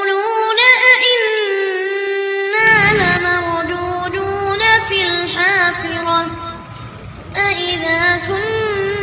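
Background music: a high solo voice singing long held notes with vibrato. A low accompaniment comes in about two and a half seconds in.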